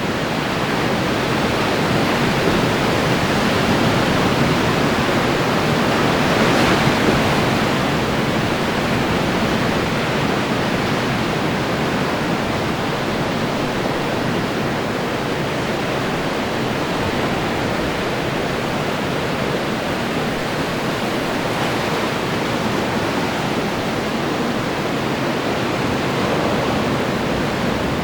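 Ocean surf breaking and washing ashore in a steady wash of noise, swelling slightly a few seconds in.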